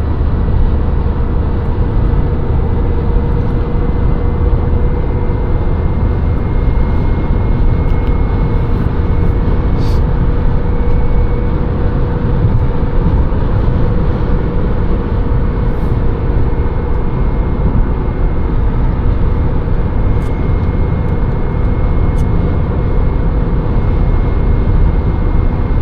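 Steady road and engine noise heard from inside a moving vehicle's cabin, with a faint steady whine over the low rumble.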